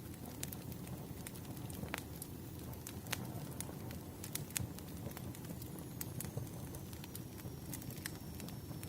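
Wood fire crackling: irregular sharp pops and snaps over a steady low hiss of burning logs.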